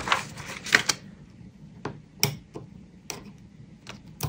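Light clicks and taps of metal tweezers picking small self-adhesive gems off their plastic backing sheet: a quick run of clicks in the first second, then single clicks about every half second.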